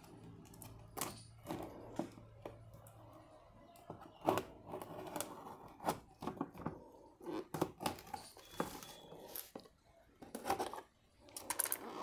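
Knife cutting through the packing tape on a cardboard box, then the cardboard flaps being torn and pulled open: irregular scraping, rustling and sharp clicks, the loudest about four seconds in and a flurry near the end.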